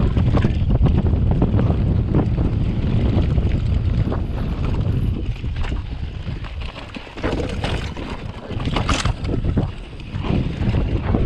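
Mountain bike riding fast down a dry dirt trail: heavy wind buffeting on the microphone over tyre noise, with the bike rattling and knocking over bumps, and a sharper clatter about nine seconds in.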